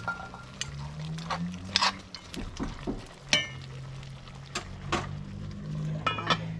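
A metal spoon knocking and clinking against a metal cooking pot, a series of irregular sharp knocks, a few of them ringing briefly, over a low steady hum.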